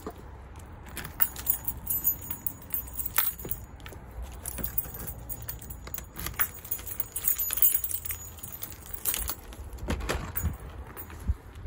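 A bunch of keys jangling, with scattered clicks and rattles, as the lock of a glazed garden door is worked open.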